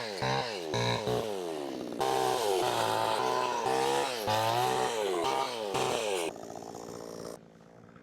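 Gasoline chainsaw's two-stroke engine revving hard, its pitch swinging up and down over and over, then dropping back to idle about six seconds in and going quieter a second later.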